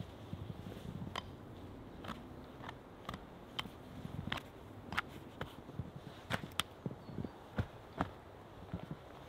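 Boots crunching and packing snow on and around a snow-covered stump, with sharp, irregular snaps and clicks about one or two a second over a low, uneven crunching.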